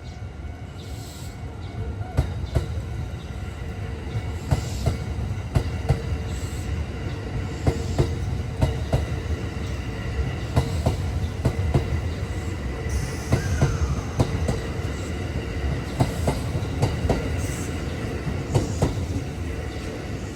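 Kintetsu 8A series and 1252 series electric train passing close by: a steady low rumble with many sharp clacks of the wheels over the rails, often in quick pairs, for most of its passing.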